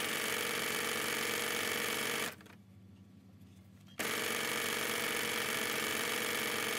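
Domestic electric sewing machine running steadily, stitching down the edge of a fabric strip. It stops for about a second and a half around two seconds in, then starts again.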